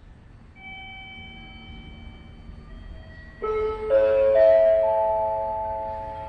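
Station public-address chime: a soft tone about half a second in, then at about three and a half seconds a cluster of ringing bell-like notes that swells and slowly dies away, the signal ahead of a platform announcement.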